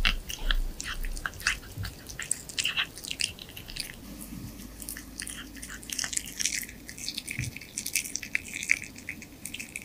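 Exotic Shorthair cat eating from a hand-held spoon and tweezers: chewing and licking with irregular wet mouth clicks and smacks.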